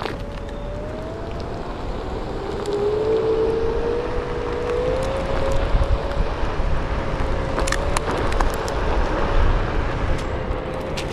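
Hub motor of a DIY VESC-controlled Onewheel-style board whining as it rolls over asphalt. The whine rises slightly in pitch a few seconds in and then holds steady. It sits over tyre rumble and wind noise on the microphone, with a few sharp clicks.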